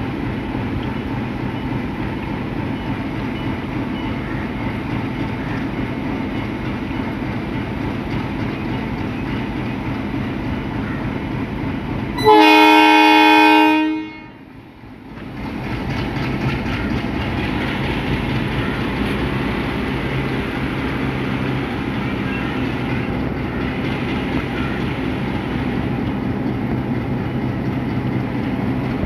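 Sri Lanka Railways M8 class diesel-electric locomotive No. 846 running steadily as it hauls its carriages slowly past. About twelve seconds in it sounds one loud horn blast of just under two seconds.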